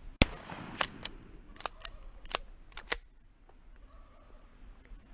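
A single shotgun shot about a quarter second in, with a short echo. Then a quick run of about seven sharp clicks over the next three seconds.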